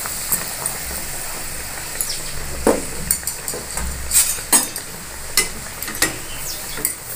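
Besan-battered bread slice deep-frying in hot oil in a kadai: a steady sizzle, with a scattering of sharp pops and clicks.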